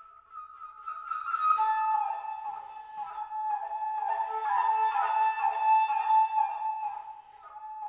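Solo concert flute playing: a held note at first, then a quick, flickering run of short repeated notes through the middle.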